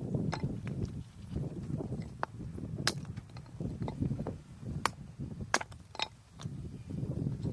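Sharp wooden cracks and knocks of firewood, about six spread unevenly over several seconds, over a low, uneven rumbling noise.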